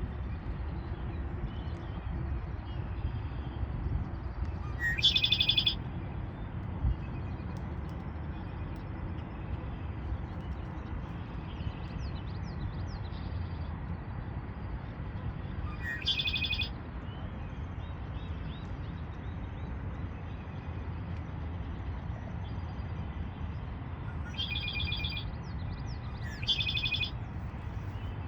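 Red-winged blackbird singing its song four times, each a short note followed by a buzzy, ringing trill about a second long, over a steady low rumble.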